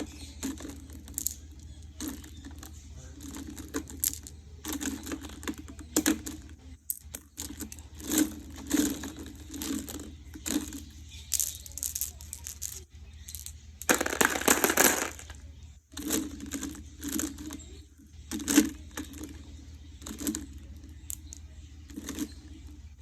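Glass marbles clicking and clacking against one another as they are sorted, in irregular sharp clicks, with a dense clattering rattle of many marbles at once lasting about a second and a half around two-thirds through. A steady low hum sits underneath.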